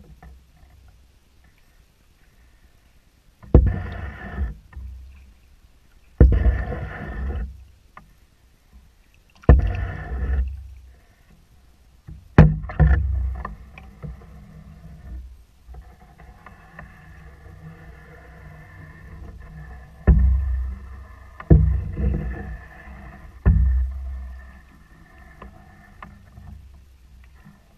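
Wooden canoe paddles stroking through calm water beside a skin-on-frame canoe: seven pulls, each a low swish and splash, spaced unevenly with a lull in the middle. About twelve seconds in there is a sharp knock.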